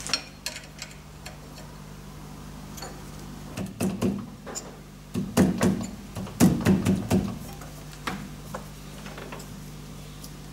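Clinks and knocks of metal parts being handled and fitted on a lathe while a wheel guard is clamped between the chuck mandrel and the tailstock, busiest around four seconds in and again from about five to seven seconds. A steady low hum runs underneath.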